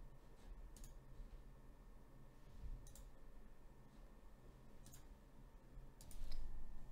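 Quiet room tone with a handful of faint, sharp clicks, spaced a second or two apart, two of them close together near the end.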